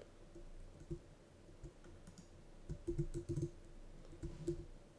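Faint, scattered clicks and taps of a computer keyboard and mouse, a cluster of them around the middle.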